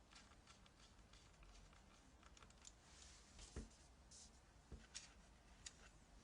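Faint scattered clicks and light taps of small plastic and metal laptop parts being handled, with two slightly louder knocks, one a little past halfway and another about a second later.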